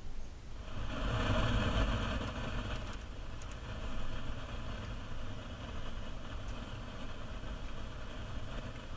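Steady static hiss from the car speakers as the newly installed radio plays between stations, over a low steady hum.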